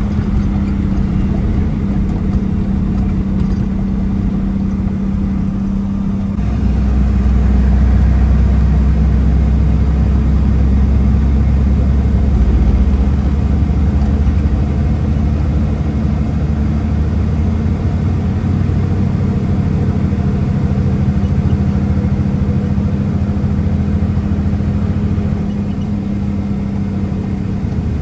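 Log truck's diesel engine droning steadily in the cab while driving, with road noise; the drone shifts to a lower, stronger pitch about six seconds in.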